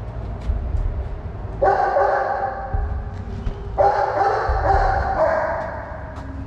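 A dog whining in two long, drawn-out cries, the first starting under two seconds in and the second, longer one about four seconds in.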